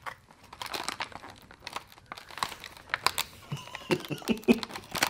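Bubble wrap and a plastic padded mailer crinkling and crackling as they are handled, in many small irregular clicks.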